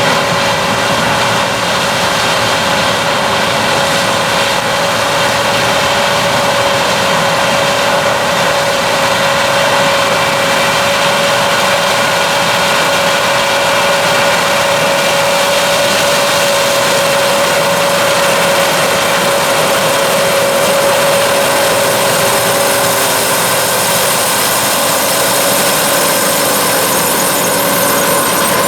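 John Deere 9600 combine running steadily: its diesel engine and threshing machinery make a constant drone with a steady high whine on top.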